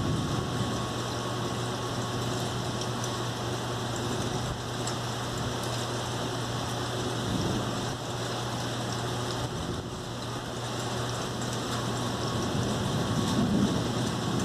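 Steady rain falling during a thunderstorm, with a steady low hum underneath. A low rumble of thunder starts to build near the end.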